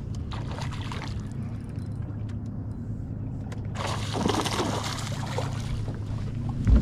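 A hooked fish splashing at the water's surface beside a boat, a burst of splashing about four seconds in that lasts over a second, over a steady low hum. A short low thump comes at the very end.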